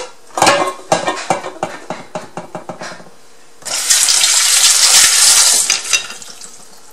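Kitchen clatter: a run of light knocks of dishes and utensils, then a kitchen tap runs for about two seconds, the loudest sound, before it stops and the clatter resumes faintly.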